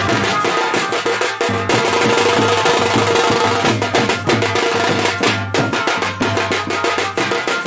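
Fast dhol drumming with a held, pitched melody line over it: live dance music.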